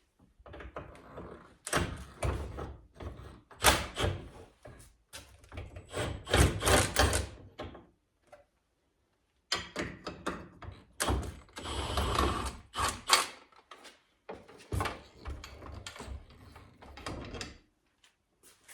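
Irregular knocks, clunks and scrapes of an Oregon bench chain grinder and its metal stand being handled and fitted together, with a brief pause about halfway through.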